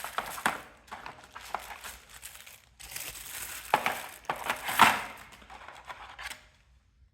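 Packaging being handled to unwrap the trimmer: irregular crinkling with small sharp clicks, loudest about four to five seconds in, stopping about six and a half seconds in.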